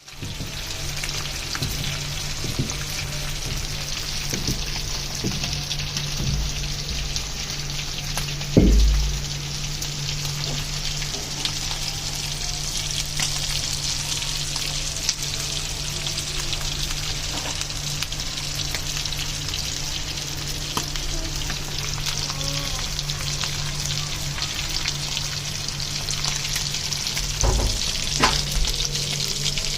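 Fish frying in hot oil: a steady sizzle with small crackling pops. A single thump comes about a third of the way in, and a few more knocks come near the end.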